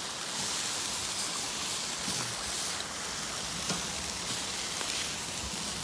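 Teriyaki-marinated chicken thighs sizzling on a grill grate over hot lump charcoal, a steady hiss with a few faint clicks now and then.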